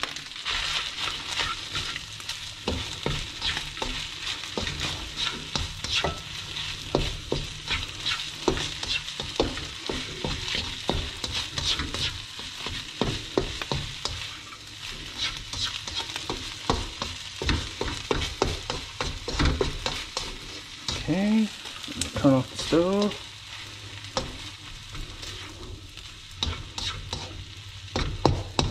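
Fried rice sizzling in a nonstick frying pan on a gas burner while a slotted spatula stirs and scrapes it in many quick strokes, the freshly added green onions cooking in. About three-quarters of the way through come a few short rising squeaks.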